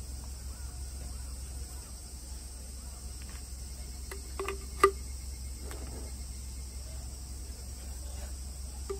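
Steady low hum and an even high hiss in the background. About halfway through come a couple of short taps and one sharp click, as a putty knife works fresh sealant along the edge of a window pane.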